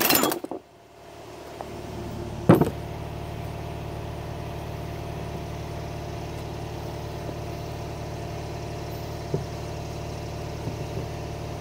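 A steady motor or engine hum fades in about a second in and runs on evenly. A sharp metal clank at about two and a half seconds, with a few light knocks later, as the steel ball joint press and its adapters are handled on the wooden bench.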